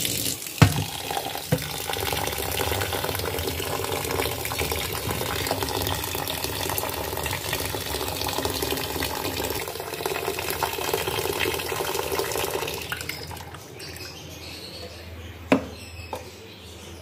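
Tap water running into a plastic bowl of rice in a stainless steel sink as the rice is rinsed. The water stops about three-quarters of the way through, and a sharp knock comes near the end.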